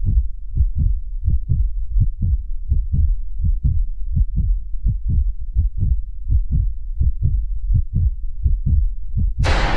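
Heartbeat sound effect: deep, steady thumps, about three a second. Just before the end, a loud burst of noise cuts in over it.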